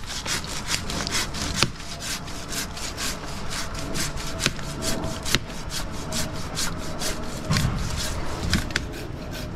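Saw cutting through wood in quick, repeated back-and-forth strokes, with no engine tone beneath; the cut is freeing a rigged log for the crane to lift.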